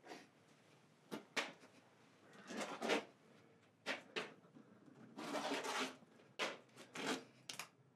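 Irregular knocks, bumps and short scrapes, about a dozen spread over the seconds, with a longer scrape about five seconds in.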